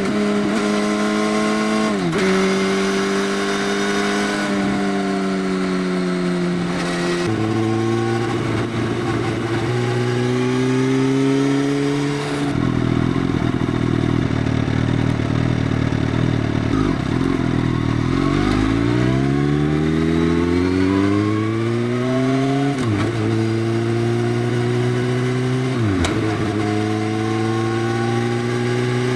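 Motorcycle running on an Arrow full exhaust system with the dB killer removed, accelerating and shifting up through the gears. The engine note climbs and drops back at each shift, three times in the first seven seconds. It then eases off to a low rumble, pulls away again with a steadily rising note, and shifts up twice more near the end.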